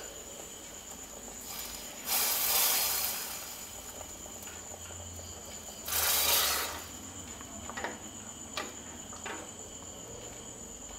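Hot coconut oil with fried shallots and curry leaves poured into a fish curry, sizzling in a loud hiss about two seconds in and again around six seconds. A few light taps of a spoon stirring against the clay pot follow.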